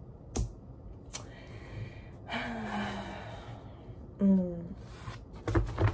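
A woman's long breathy sigh, falling slightly in pitch, followed by a short hum. A couple of light clicks come before the sigh, and low knocks come near the end.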